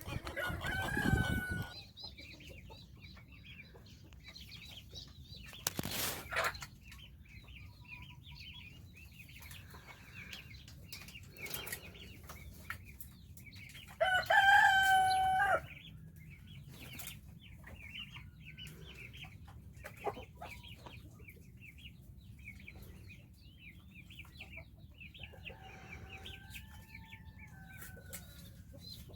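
Farmyard chickens clucking and pecking, with a rooster crowing loudly about halfway through. There is a shorter crow just after the start and a fainter one near the end, and a brief loud rustle about six seconds in.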